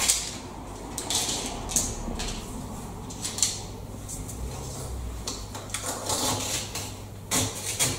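Scattered light clicks and knocks as wedges and plastic packers are handled and pushed in between a door frame and the wall, wedging the frame in position.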